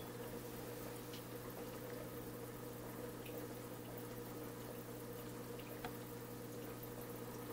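Aquarium equipment running: a steady low hum with soft bubbling and small faint pops from air bubbles rising in the tank.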